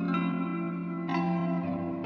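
Background music of sustained instrumental chords, with a new chord struck about a second in.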